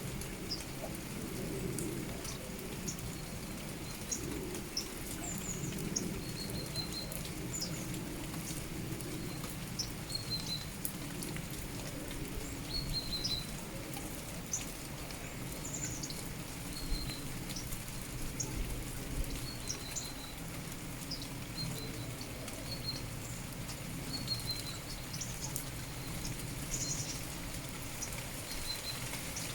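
Steady rain with small birds chirping throughout: short high chirps, many of them slipping down in pitch, coming every second or two.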